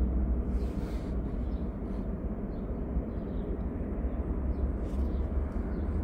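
Steady low rumble with a hiss of outdoor background noise, with no distinct event standing out.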